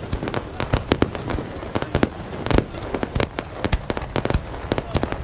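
Fireworks going off: a rapid, irregular run of cracks and bangs, several a second, over a continuous crackling background.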